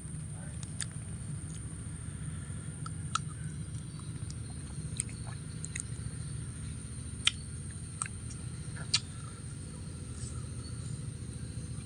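A person chewing firm, unripe nam-nam fruit: irregular crisp crunches and clicks, a few louder ones in the second half, over a steady low background hum.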